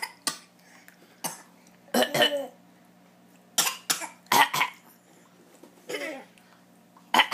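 A baby's short vocal bursts, about seven in all and scattered, some breathy and cough-like, others laughing or squealing with a bending pitch.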